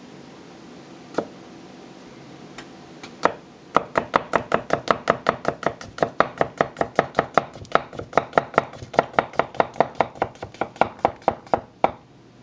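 Teruyasu Fujiwara chef's knife slicing a potato on a wooden cutting board. A single knock comes about a second in and another near three seconds. Then a fast, even run of blade strikes on the board follows, about five a second, and stops just before the end.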